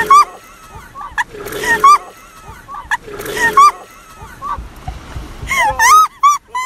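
A person vomiting milk into a plastic bin: three retching heaves about a second and a half apart, with liquid splashing into the bin. High-pitched squealing voices cut in between the heaves and grow louder near the end.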